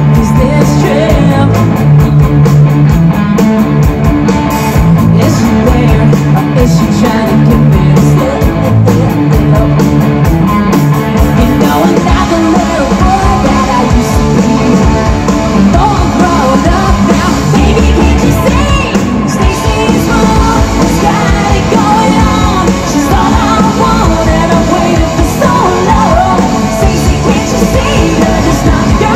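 Live rock band playing through a stage PA: drums, electric guitars and a woman singing into a microphone.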